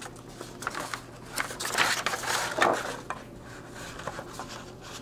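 Loose sheets of printer paper rustling and flapping as a printed manual is leafed through, loudest about two to three seconds in.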